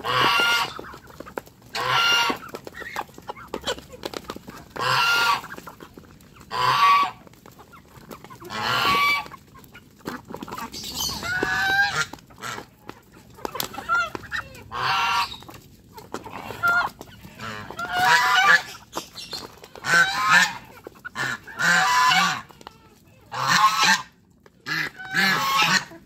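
Geese honking loudly and repeatedly, one call every second or two, with quieter gaps in between.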